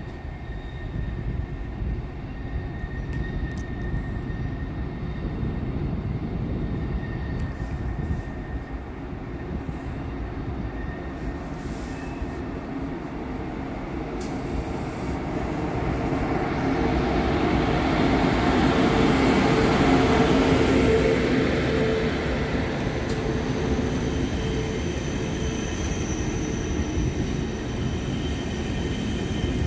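ICE high-speed train pulling slowly into a station platform: a steady rolling rumble that grows as it approaches, loudest about two-thirds of the way through with a low hum, then faint high-pitched wheel squeal as the cars roll past.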